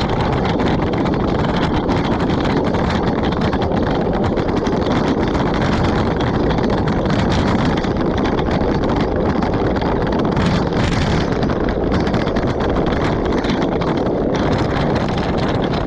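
Steady, loud rush of wind buffeting an action camera's microphone on a moving road bike, with many small clicks running through it.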